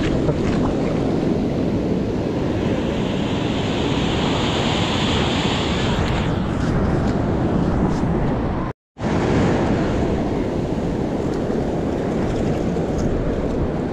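Sea waves washing, with wind rumbling on the microphone; a brighter hiss swells up between about three and six seconds in, and the sound cuts out for a moment about nine seconds in.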